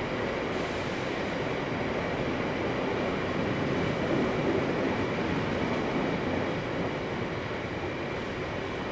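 Freight train of loaded Drax biomass hopper wagons rolling past, with a steady noise of wheels on rail that swells slightly in the middle.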